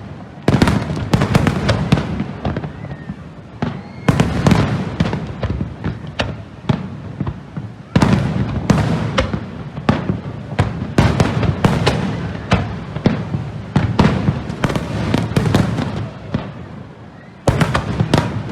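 Fireworks display: a dense run of bursts and crackling, with a heavier volley of booms every three to four seconds.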